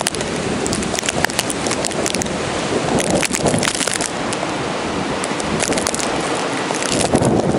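Snowstorm wind blowing hard across the microphone, a steady rushing noise broken by many sharp crackles.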